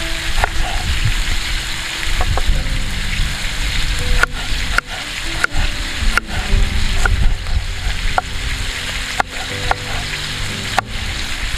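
Meat and vegetables sizzling in a metal saj as they are stirred, with sharp clicks of a utensil against the pan every second or so.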